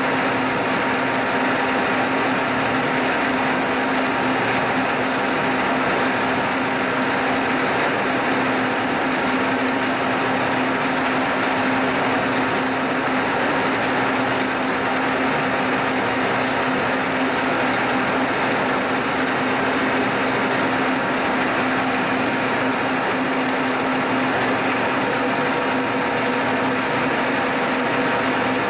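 Vertical milling machine running steadily with an end mill cutting clearance into a metal part, a constant machining hum with a steady tone throughout.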